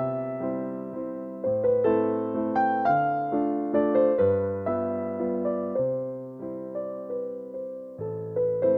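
Background music: a gentle piano or electric piano melody with chords, notes struck and left to ring and fade.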